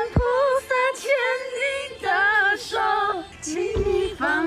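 A group of women singing without accompaniment, a slow line of held notes with the words "現在換菩薩牽你的手… 請你放心的跟祂走" ("now let the Bodhisattva hold your hand… go with Him without worry").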